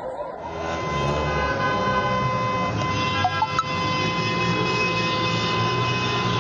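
Emergency vehicle sirens and horns sounding together over street traffic: several steady tones held at once, with vehicle rumble underneath.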